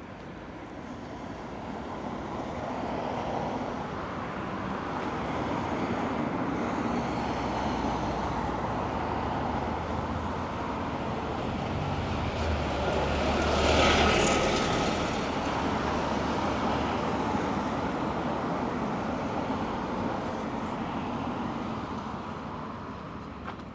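Road traffic passing: motor vehicles building up, one passing closest about fourteen seconds in with a brief loud rush of tyre and engine noise, then fading away.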